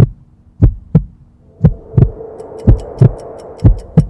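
Heartbeat-style sound effect for a logo intro: deep double thumps repeating about once a second. A hum swells in under them partway through, then fast faint high ticking joins in.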